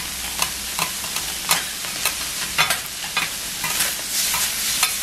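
Chopped pork, clams and kimchi frying on a hot teppan griddle with a steady sizzle, while metal spatulas scrape and clack against the plate about twice a second, unevenly.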